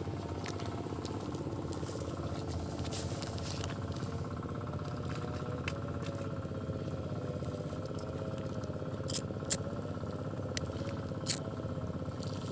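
A disposable lighter struck several times near the end, sharp clicks of the flint wheel as a small firecracker's fuse is lit. Under it runs a steady engine-like drone.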